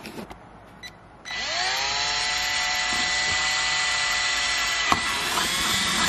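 Cordless drill spinning up about a second in, its whine rising in pitch and then running steadily as it bores a small pilot hole through a plastic ashtray insert.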